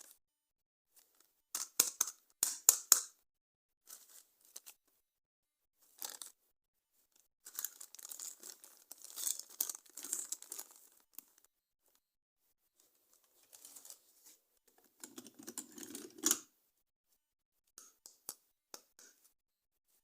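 Toy packaging and plastic toy parts being handled in separate bursts: a cluster of sharp clicks, then a few seconds of crinkling and tearing, then a fuller rustle and a few light clicks, with quiet gaps between.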